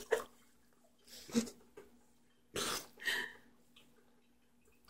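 Mostly quiet, with a few brief soft mouth and breath sounds from a toddler biting and chewing a Granny Smith apple; the clearest is a short noisy burst a little past halfway.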